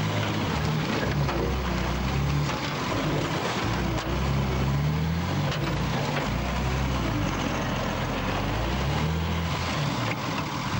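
Mercedes-Benz Unimog's diesel engine pulling through deep mud, heard from inside the cab, its revs rising and falling, over a constant rushing noise.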